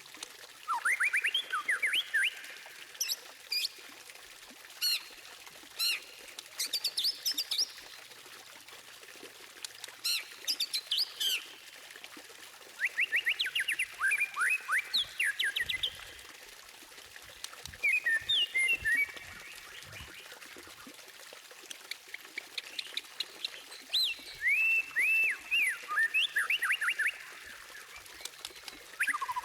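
White-rumped shama singing: varied song phrases separated by short pauses, several of them rapid series of rising whistled notes, mixed with thin, very high notes.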